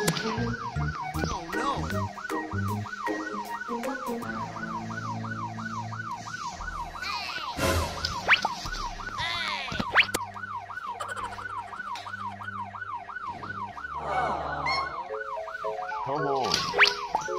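Background music: a siren-like wailing tone repeats two or three times a second over held bass notes. A few quick swooping sound effects come about halfway through.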